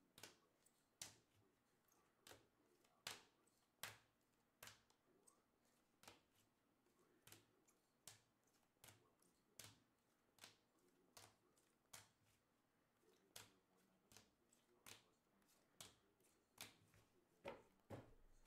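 Faint, regular clicks of trading cards being flipped one at a time, about one every three-quarters of a second.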